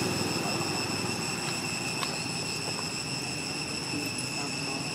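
Steady high-pitched drone of insects calling, with a faint low rumble underneath and a light click or two.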